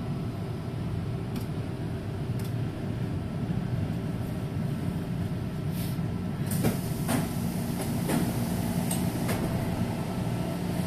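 Inside a Taipei Metro C321 train car standing at a station: a steady low hum from the car. About six and a half seconds in, the sliding doors open with a rush of hiss and several sharp clicks and knocks.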